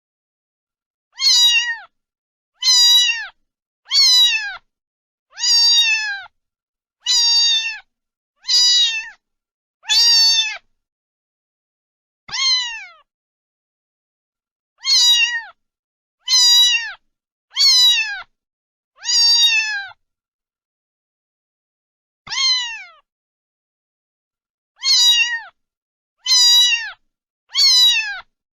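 A cat meowing over and over: about sixteen short, high meows, each falling in pitch, separated by silent gaps of one to three seconds.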